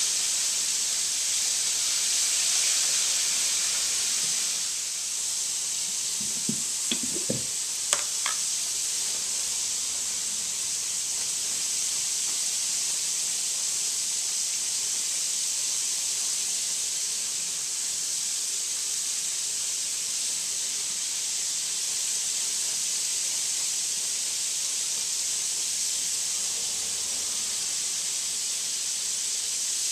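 Flour-dredged pork country-style ribs frying in oil in a skillet, a steady high sizzle throughout. A few light clicks about six to eight seconds in.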